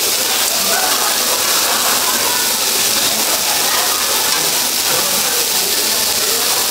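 Pork belly and pork neck cubes sizzling steadily in their fat on a hot cast-iron cauldron-lid grill.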